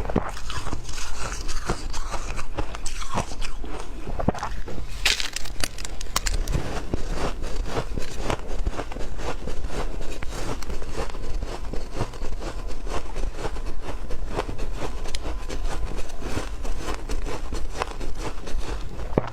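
Close-miked biting and chewing of ice: rapid dense crunching and cracking, with a sharper crack about five seconds in.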